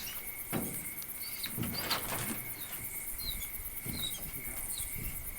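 Late-summer night insect chorus: crickets trilling steadily, with a fast pulsing high buzz and scattered short chirps. A few soft rustles close by about half a second, two seconds and four seconds in.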